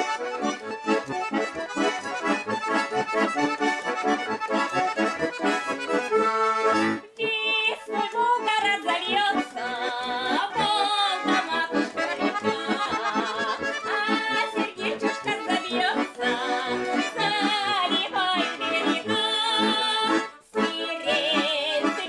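Russian accordions, a garmon and a bayan, playing a folk song. A woman's voice sings along from about a third of the way in.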